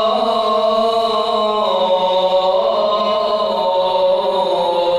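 A man's voice chanting the adhan, the Islamic call to prayer, loud and into a handheld microphone. He holds one long, ornamented note whose pitch steps down about two seconds in and bends again soon after.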